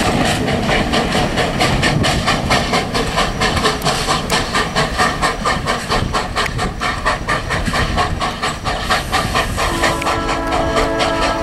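Leviathan 63, a replica 4-4-0 steam locomotive, working hard with a quick, even beat of steam exhaust chuffs as it pulls its train away. Near the end its steam whistle blows a chord of several tones.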